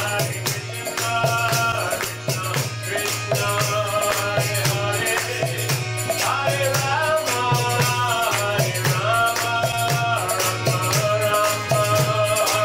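Kirtan: voices singing a devotional chant over a hand-played mridanga drum and the fast, steady clash of karatalas hand cymbals.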